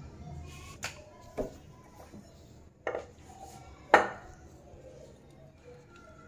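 Crockery clinking and knocking as dishes are handled: four sharp clinks, the loudest about four seconds in.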